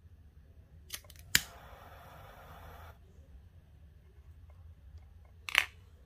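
Scissors snipping thin micro cord ends: a sharp snip about a second and a half in, followed by a hiss lasting just over a second, and another snip near the end.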